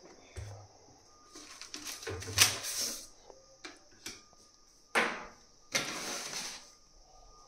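Handling noise: three bouts of rustling and scraping as things are moved about and handled, the loudest a sharp scrape about five seconds in, over a faint steady high hiss.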